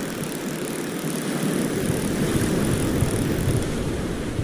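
Sea surf breaking over shore rocks, with wind rumbling on the microphone; the rumble swells about halfway through.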